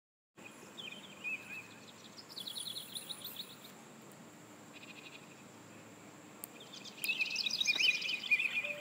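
Birds chirping and twittering, with a quick run of repeated notes around three seconds in; the chirping grows louder and busier about seven seconds in.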